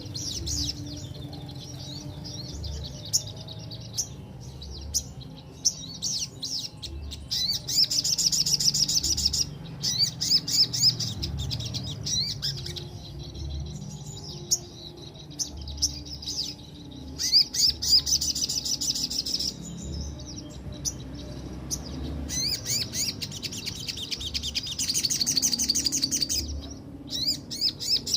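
Sogok ontong, a sunbird, singing: sharp high chirps broken up by long, fast rolling trills. The trills come about a third of the way in, again a little past halfway, and longest near the end.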